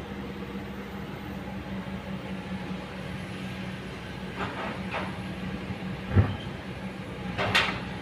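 Kobelco crawler excavator's diesel engine running steadily, with a couple of short clanks, then a heavy thump about six seconds in as the bucket works the ground, and a brief scraping hiss near the end.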